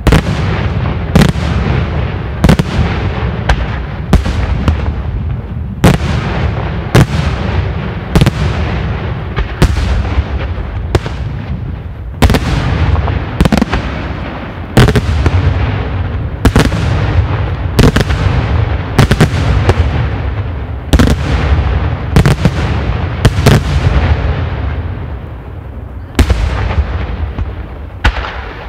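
Daytime aerial fireworks shells bursting in quick succession: sharp, loud bangs about one to two a second, with a continuous rumble of echoes and further reports between them.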